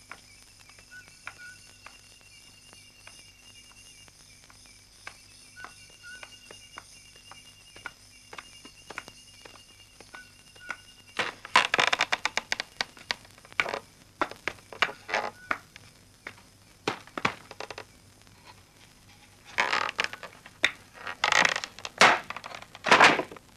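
Insects chirping in repeated trills, then from about halfway a busy clatter of knocks and scuffling, with several loud harsh bursts near the end.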